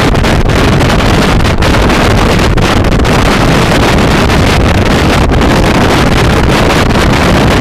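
Loud, steady wind buffeting the microphone while riding a Kymco Xciting 400i maxi-scooter at speed, drowning out the engine.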